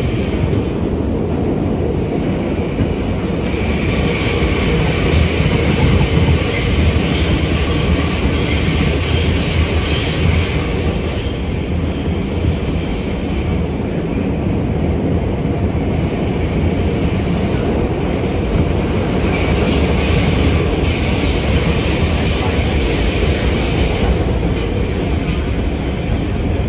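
R68 subway train running at speed, heard from inside the car: a steady rumble of wheels on rails. Twice a brighter, hissing wheel-on-rail noise swells in for several seconds, once from about four seconds in and again about twenty seconds in.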